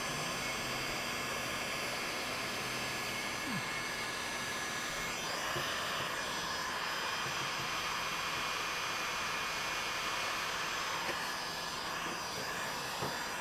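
Electric heat gun running steadily: its fan blowing hot air with a faint steady whine, heating vinyl lettering so the adhesive lets go.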